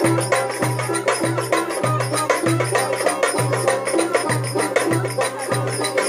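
Live dance tune with an ornamented, wavering melody over a goblet drum (darbuka). The drum plays a steady pattern of deep strokes about twice a second, with quick sharp taps in between.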